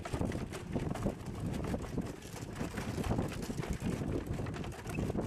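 Wind buffeting the microphone in irregular gusts, a rumbling, crackling rush.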